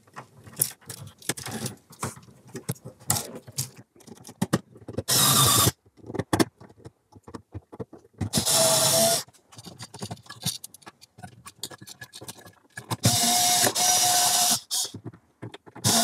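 Small cordless electric screwdriver running in four short bursts of about a second each, driving the mounting screws of a GFCI outlet and a light switch into metal electrical boxes. Before the first burst come clicks and rattles of wires and devices being pushed into the boxes.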